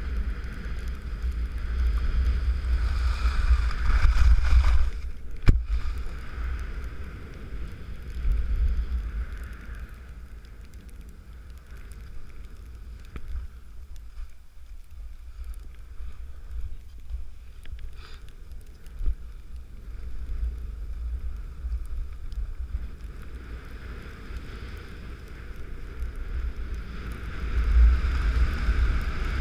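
Wind rumbling on the microphone and the hiss of a snowboard sliding over snow, louder early on and again near the end, with one sharp knock about five seconds in.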